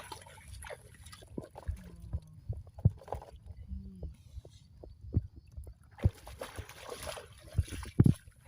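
Irregular sloshing and splashing in shallow muddy water, with scattered dull thumps and a longer burst of splashing about six seconds in.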